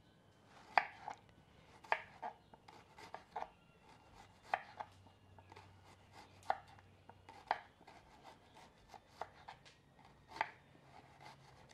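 Knife slicing an onion, in separate unhurried cuts. Each cut ends in a sharp tap against the cutting surface, about one or two a second, unevenly spaced.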